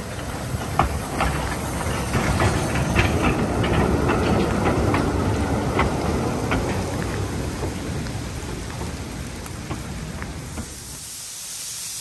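Narrow-gauge steam locomotive hauling a goods train past at close range: hissing steam and exhaust with sharp clicks from the wagon wheels over the rail joints. It is loudest about four seconds in, then fades as the brake van passes.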